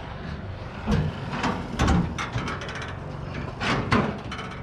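Several knocks and clunks of hard objects being handled, with a quick run of rattling clicks in the middle.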